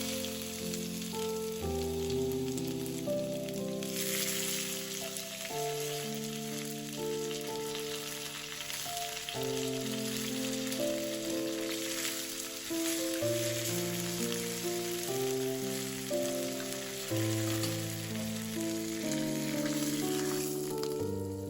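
Food frying in a pan: a steady sizzle that gets louder about four seconds in and dies away near the end, over background music with held notes.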